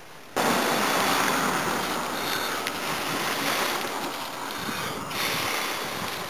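Breath blown hard and steadily into a smouldering grass tinder bundle to bring a flint-and-steel ember up to flame, a rushing of air close to the microphone that starts suddenly, with a short break about five seconds in.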